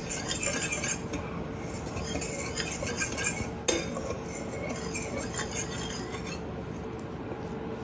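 A whisk stirring dry flour mixture in a mixing bowl, with quick scraping and clicking against the bowl. It stops about six seconds in.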